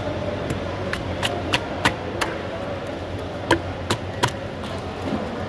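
Knife chopping tuna into chunks, the blade knocking sharply on the cutting board: a quick run of about six knocks in the first two seconds, then three more between about three and a half and four and a quarter seconds in. A steady low hum runs underneath.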